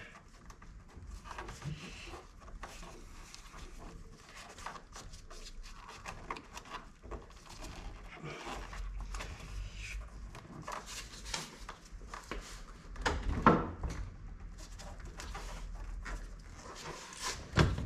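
Scattered small clicks, taps and scrapes of a plastic interior cover on a VW Golf Mk5 rear door being worked loose by hand, with a louder burst of handling noise about thirteen seconds in.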